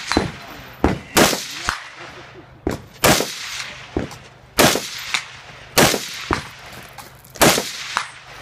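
Rifle shots fired one at a time, a loud sharp crack every second or two, with quieter cracks in between.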